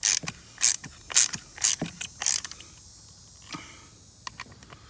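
Hand ratchet clicking in strokes about every half second as a brake caliper slide pin bolt is tightened, then a few faint clicks in the last two seconds.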